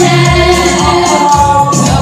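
Gospel worship music: many voices singing together over backing music with a bass line and a steady drum beat.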